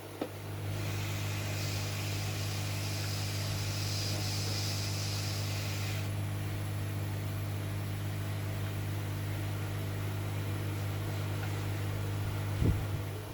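Hot air rework station blowing on a circuit board to desolder a chip: a steady low hum with an airy hiss that starts about a second in. The hiss fades about halfway through while the hum runs on, and a knock comes near the end just before the hum drops away.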